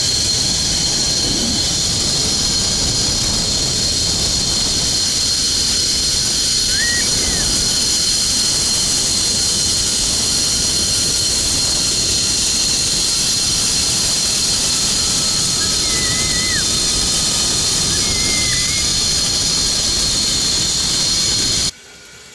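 Zipline trolley's pulleys running along the steel cable with a steady high whine, over loud wind rush on the microphone during a fast descent; a few short high chirps sound briefly. It cuts off suddenly near the end.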